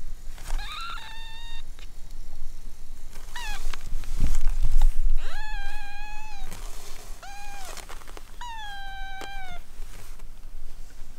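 Week-old kittens mewing: about five thin, high-pitched mews, two of them drawn out for over a second with a falling tail, the others short. A low rumble comes through about four seconds in.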